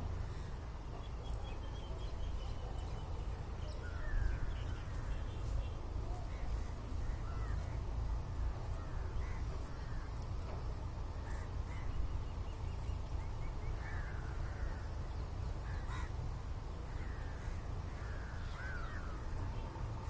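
Birds calling outdoors: a scatter of short chirps and quick gliding calls, over a steady low rumble.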